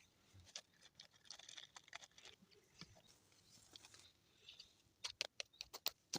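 Faint crackling of a small campfire catching, with wood shavings and sawdust soaked in lighter fluid burning. Soft scattered ticks at first, then a quick run of sharper pops near the end.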